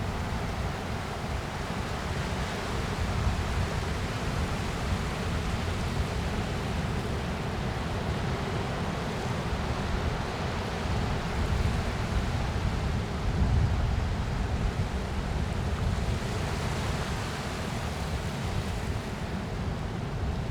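Ocean surf rolling in: a steady rush of breaking and washing waves over a deep rumble, swelling louder around the middle and easing off near the end.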